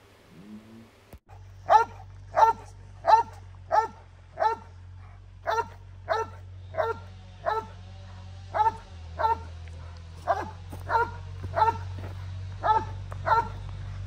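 Cane Corso barking steadily and rhythmically, about one and a half barks a second, starting a couple of seconds in: a hold and bark, guarding a motionless decoy without biting.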